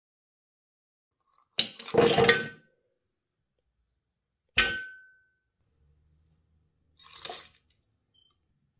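Kitchen dishes and utensils handled: a brief clatter, then a single sharp clink that rings briefly, then a softer knock about two seconds later.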